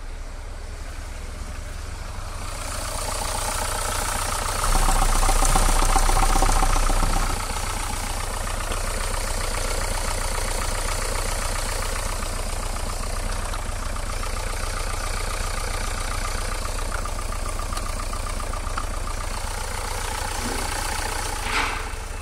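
Renault Kangoo's 1.5 dCi four-cylinder diesel engine idling steadily, heard close to the open engine bay, louder for a couple of seconds about five seconds in.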